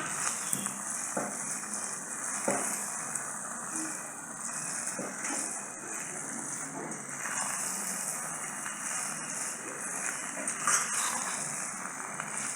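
Noodles and vegetables frying in a pan with a steady sizzle, with a few faint knocks from the stirring spoon.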